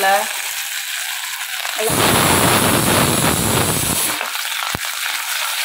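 Hot oil in a kadai sizzling from a mustard-seed tempering. About two seconds in it flares into a much louder, fuller sizzle for around two seconds as dried red chillies and seasonings go into the oil. A single sharp click follows near the end.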